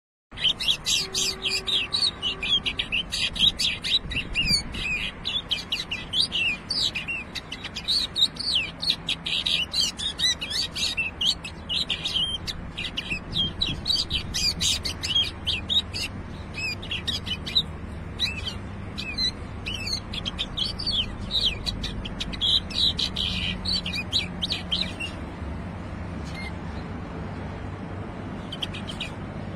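Caged common bulbul singing a rapid, chirpy warbling song that runs on almost without a break and stops about 25 seconds in, leaving a faint low hum.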